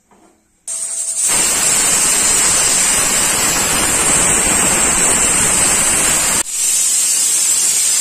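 Stovetop pressure cooker whistling as it comes up to pressure: a loud, steady jet of steam hissing out under the weight, with a high shrill tone. It starts abruptly about a second in and breaks for a moment near the end.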